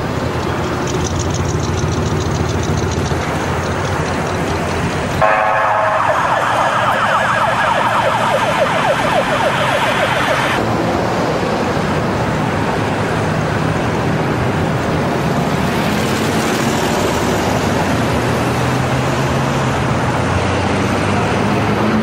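Steady vehicle and road traffic noise with a low engine drone. From about five to ten seconds in, a harsh buzzing higher sound lies over it and then stops abruptly.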